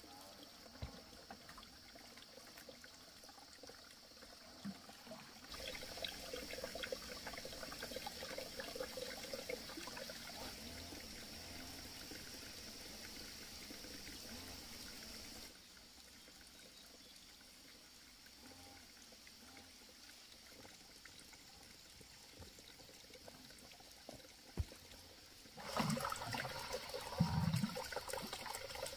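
Water pouring and trickling, in several stretches that start and stop abruptly, louder in the middle and again near the end, with a couple of brief knocks.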